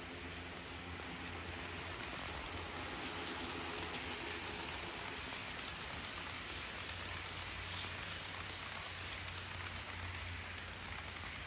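HO scale model freight train, led by two Dash 8-40CM model diesels, rolling past on the track: a steady rattling hiss of metal wheels on rail with a low motor hum, the locomotives' faint whine fading after the first few seconds as the freight cars roll by.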